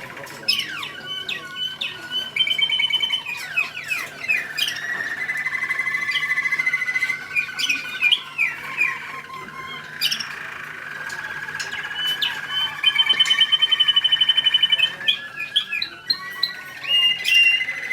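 American Singer canary singing a long, unbroken song of rolling trills, held whistled notes and quick sweeping chirps. The loudest stretch comes past the middle, a fast high trill.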